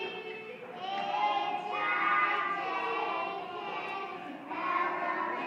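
Several young children singing a song together.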